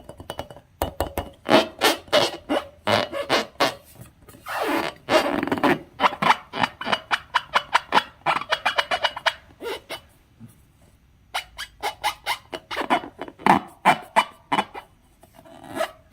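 Slime being squeezed and worked by hand: rapid wet clicks and pops, several a second, with a short pause about ten seconds in.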